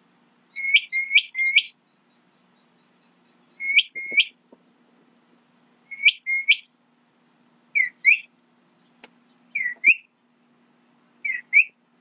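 A bird calling in quick pairs and triplets of short chirps, each sweeping sharply upward, repeated every couple of seconds. A faint steady low hum runs underneath.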